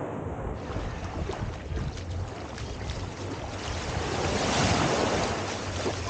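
Small waves washing up on a sandy beach, one wash swelling and fading about four to five seconds in, with wind buffeting the microphone.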